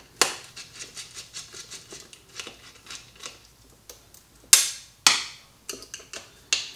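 Light clicks and taps of parts being handled inside a lithium battery pack's wiring and connectors, with two sharper clacks about four and a half and five seconds in.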